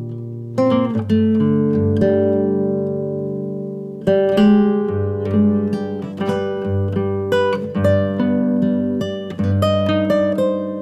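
Background music on guitar: a plucked chord rings out and fades, a new chord comes about four seconds in, then quicker picked notes follow.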